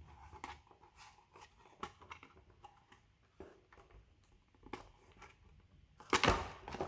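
Scattered small clicks and rustles of the kit's parts and cable being handled, with a louder rustle lasting just under a second about six seconds in.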